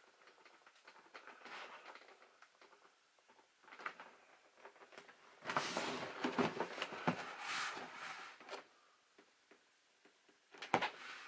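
A cardboard box being handled and turned over by hand: cardboard rubbing and scraping in irregular bursts, loudest for a few seconds in the middle, with one short sharp knock near the end.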